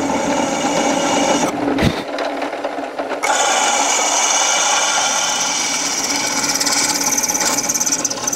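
Drill press running with a steady whine while a twist drill bores a bolt hole through a cast iron cylinder head flange. There is a click about two seconds in, then a louder, grating cutting noise from about three seconds in.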